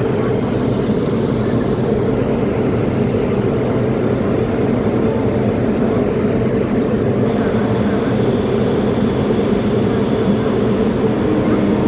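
Railway locomotive running steadily, a loud, even, low drone.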